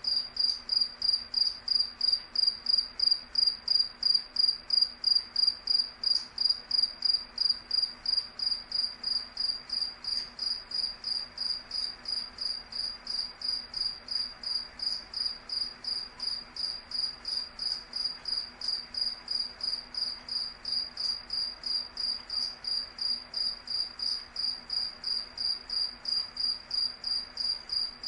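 A cricket chirping steadily: evenly spaced high-pitched chirps, about three a second, keeping the same pace throughout.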